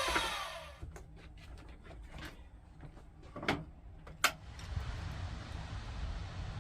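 A power tool winding down, its pitch falling as it stops in the first second, followed by light clicks and two sharper knocks of wood and tools being handled on the bench, with a low steady hum near the end.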